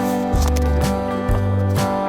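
Background music: acoustic and slide guitar in a country style with a bass line, strummed and plucked to a steady beat.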